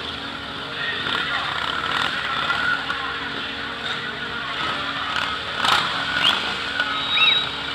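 Several motorcycles ride slowly past at low revs, their engines running together, with voices from the onlookers mixed in.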